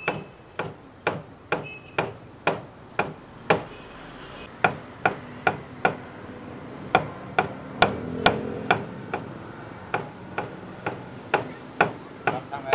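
Cleaver chopping roast pork on a round wooden chopping board: sharp chops in a steady rhythm of about two a second, with a couple of brief pauses.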